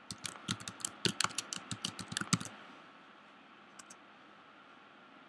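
Typing on a computer keyboard: a quick run of keystrokes for about two and a half seconds, then a faint double click about a second later.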